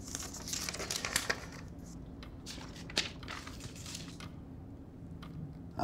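Paper rustling as the pages of a small notebook are handled and leafed through, with scattered soft clicks and one sharper click about three seconds in, over a faint steady low hum.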